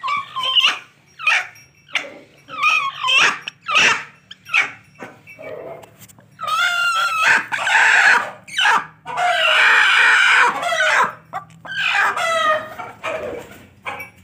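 A hen sitting on a straw nest squawks repeatedly and loudly, a string of short harsh calls with a longer rasping squawk about nine to eleven seconds in, while a hand touches her on the nest.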